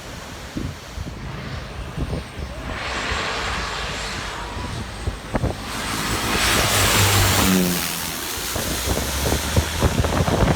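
Small propeller aircraft passing low overhead, its engine noise swelling to a peak a little after halfway and its pitch dropping as it goes past, then fading.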